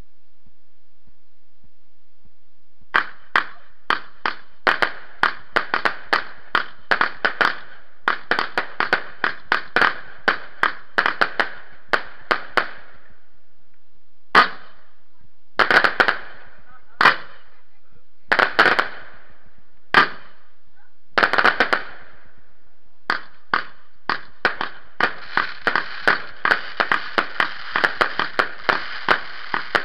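Firecrackers crackling: rapid, irregular sharp pops starting about three seconds in, with a few short pauses, then a dense, continuous crackle near the end.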